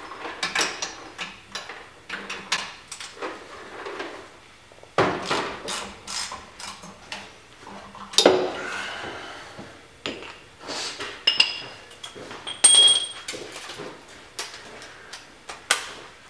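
Hand tools knocking and clinking on the metal of a car's front suspension during a coilover install. The taps and clanks come at uneven intervals, with the sharpest knocks about a third and halfway through, and a few short ringing metallic clinks about three-quarters through.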